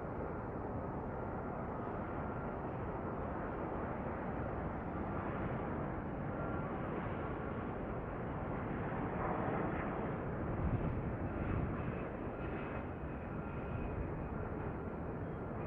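Distant jet airliner engine noise, a steady sound with a faint high whine, growing a little louder about nine to twelve seconds in.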